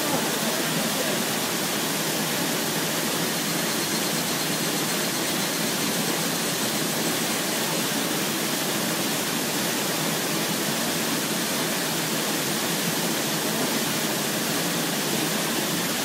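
Small waterfall pouring into a rock pool: a steady rush of falling water that keeps an even level throughout.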